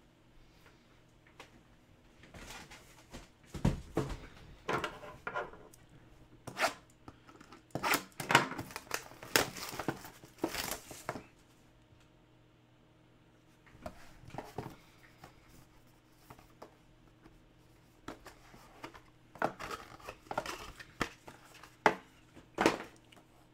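Plastic shrink-wrap and cardboard being torn open on a sealed trading card hobby box, in a string of short ripping and crinkling bursts with pauses between them. Near the end, small card boxes are handled and set down on a wooden table.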